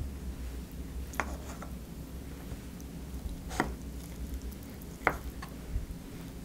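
A wooden spoon scooping stew and mixing it into rice in wooden bowls, with three light knocks of spoon on bowl about one, three and a half and five seconds in, over a low steady hum.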